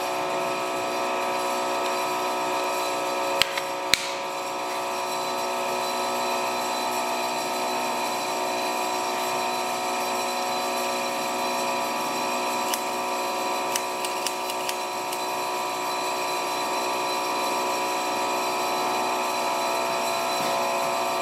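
Steady machine hum in a machine shop with several constant tones, broken by a few light clicks about three and a half and four seconds in and a cluster of faint ticks around thirteen to fifteen seconds.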